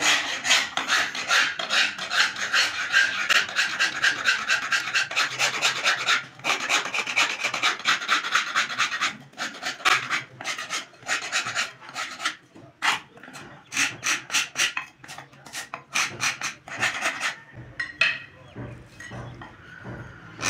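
Hand file rasping back and forth along a spoon blank braced against a wooden block. The strokes are quick and rhythmic, with a few brief pauses, and thin out near the end.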